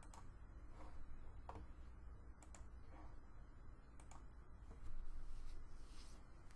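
Faint, scattered clicks of a computer mouse and keyboard, about half a dozen, over a low steady hum, with a soft brief hiss about five seconds in.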